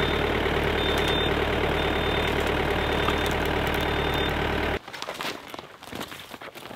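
An engine idling steadily, cutting off abruptly about five seconds in. Quieter scattered clicks and rustling follow.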